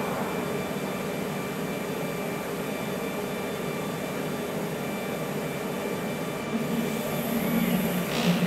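CNC router's Z-axis touch-off routine over a steady mechanical hum. From about six and a half seconds in, a louder motor sound comes as the head lifts off the Z touch-off pad.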